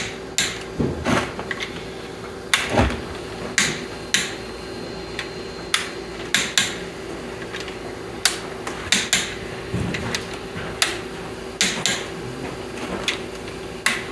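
Hand-tool work on the rocker arm assembly of a John Deere 400 engine: sharp metallic clicks and clanks at irregular intervals, about one a second, over a faint steady hum.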